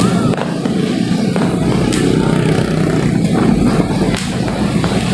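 Motorcycle engines running in street traffic, heard close by from a moving viewpoint as a steady, loud low rumble.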